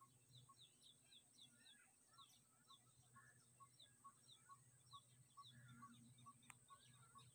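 Faint birds calling: a short note repeated about twice a second, quick high falling chirps and a few warbling calls, over a steady high hiss. One faint click comes near the end.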